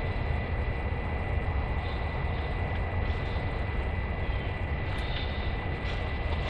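Wind buffeting the microphone: a steady low rumble with a faint, thin high tone over it.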